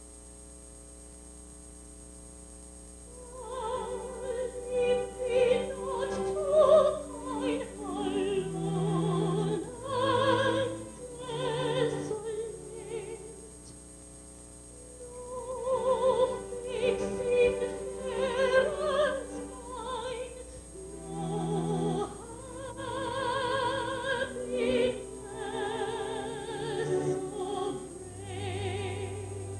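Operatic light-opera singing with a wide vibrato over orchestral accompaniment, in a stage performance. The voice comes in about three seconds in, after a quiet opening.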